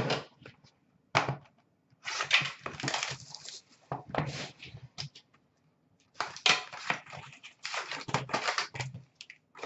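Cardboard hockey card boxes being handled: several bursts of rustling, scraping and crinkling, with a denser run of it in the last few seconds.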